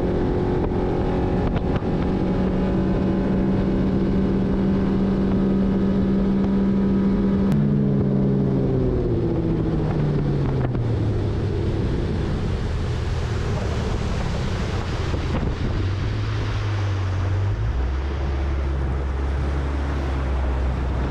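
Bass boat's outboard motor running under way, its steady note stepping down in pitch about seven to eleven seconds in. Rushing water off the hull and wind on the microphone grow louder through the second half.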